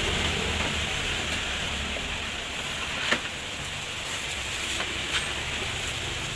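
Steady rushing background noise with a low rumble, broken by two short sharp clicks about three seconds and five seconds in.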